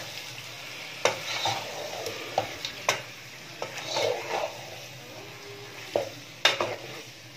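Spice-marinated chicken pieces sizzling steadily in hot oil in a nonstick pan as they are browned, while a wooden spatula stirs and scrapes them, knocking sharply against the pan a few times.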